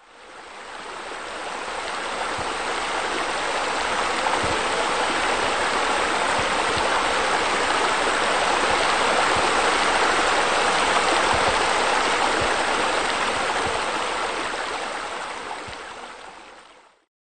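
Steady rushing of running water that fades in over the first few seconds and fades out near the end.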